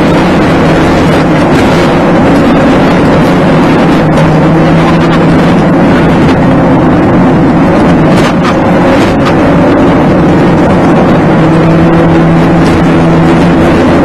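Car engine and road noise heard inside the cabin as the car drives, a loud steady drone. An engine tone comes up twice for a few seconds, near the start and again near the end.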